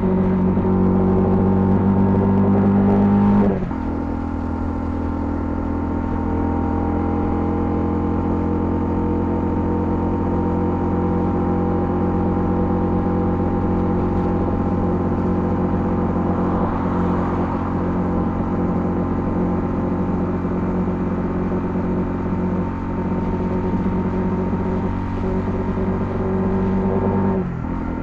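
Honda CL250's single-cylinder engine running steadily under way. The engine note and loudness drop about three and a half seconds in, hold steady at cruise, and drop again near the end.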